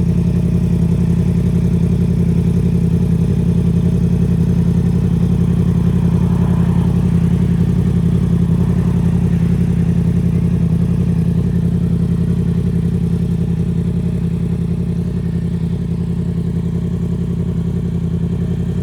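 2018 Yamaha R1's crossplane inline-four engine and exhaust running at a steady idle, a deep, even burble with no revving. The sound dips slightly in loudness past the middle.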